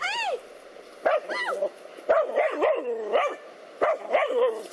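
Dogs barking at a snake: short high barks near the start and again about a second in, then a longer run of wavering, whining barks.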